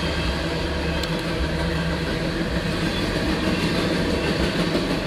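Empty CSX coal train rolling past, heard from inside a car: a steady, unbroken rumble of wheels and hopper cars on the rails, with a faint steady tone running through it.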